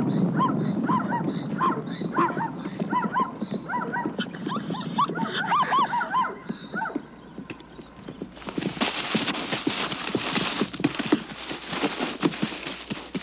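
Wild animal chase: a rapid series of short, high cries, two or three a second, for the first half. From about eight seconds in come scuffling hooves and many quick thuds on dry ground, as a wildebeest charges.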